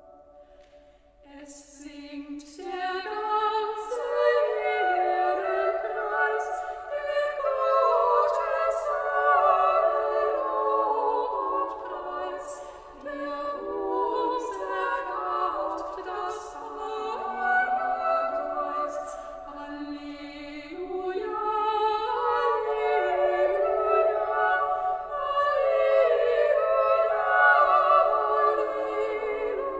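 Small group of female voices singing together a cappella, starting about a second and a half in.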